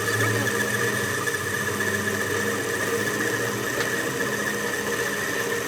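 A workshop machine running steadily: a low hum with a steady high-pitched whine.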